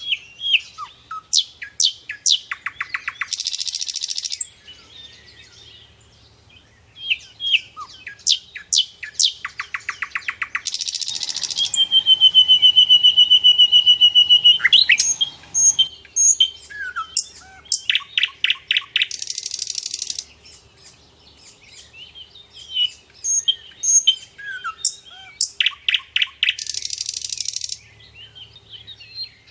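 Nightingale singing: varied phrases of rapid trills and buzzy rattles, with a long drawn-out whistle in the middle, in a pattern that repeats every several seconds.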